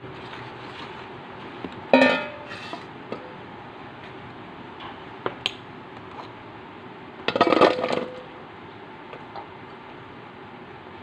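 Stainless steel bowl clanking with a ringing tone about two seconds in, then a short rattling run of knocks past the middle as halved green eggplants are tipped into the steel bowl. A few light clicks fall in between.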